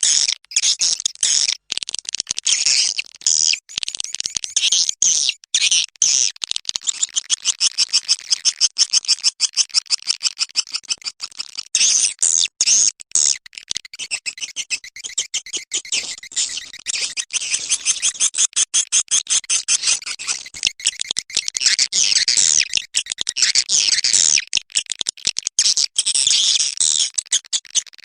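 Swiftlet lure-call recording: edible-nest swiftlets twittering in rapid, high-pitched chirps and clicks, many a second, in a dense continuous chatter.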